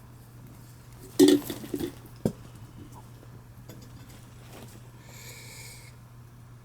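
Hard parts clattering and clinking as they are handled: a loud cluster of knocks about a second in and a single sharp click a second later, over a steady low hum.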